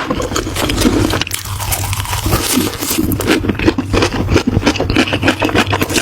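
Close-miked chewing of crunchy food: a dense, rapid run of crunches and crackles over a steady low hum.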